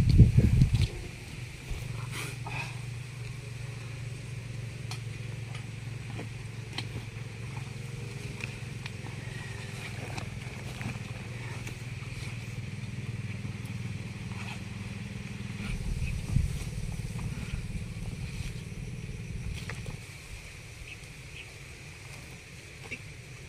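A steady low engine hum, like a motorcycle or small motor running nearby, that stops abruptly about twenty seconds in. A loud low thump right at the start.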